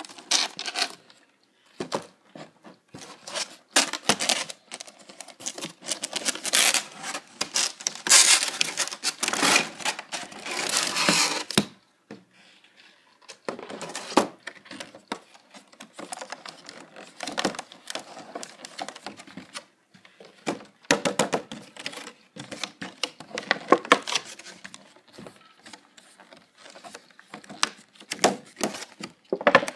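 Stiff clear plastic packaging being handled and pulled apart by hand, with irregular crinkling, crackling and clicking. The densest, loudest crackling comes in the first twelve seconds, with a short pause just after.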